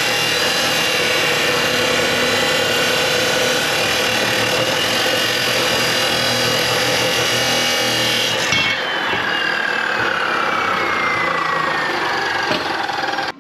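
Power saw cutting metal pipe, running loud and steady. About eight and a half seconds in, the cut ends and the motor winds down with a falling whine.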